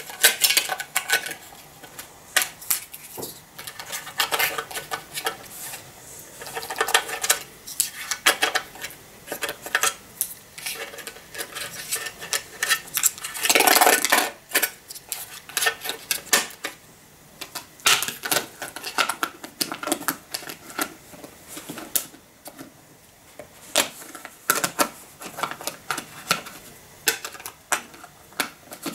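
Plastic measuring scoop tapping and scraping inside a metal infant-formula tin, a long run of irregular clicks and scrapes with a louder rustling scrape about fourteen seconds in. The tin's plastic lid is handled and put back on.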